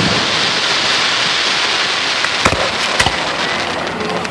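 Aerial fireworks: a dense crackling hiss from bursting shells fills the first half, then two sharp bangs about half a second apart, followed by a few smaller pops.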